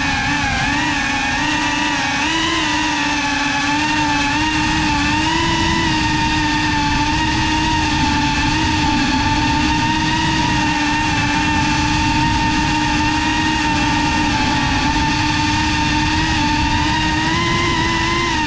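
GEPRC CineLog35 cinewhoop's brushless motors and ducted propellers in flight, heard through the onboard GoPro: a loud, steady whine whose pitch wavers a little with throttle, dipping briefly near the end.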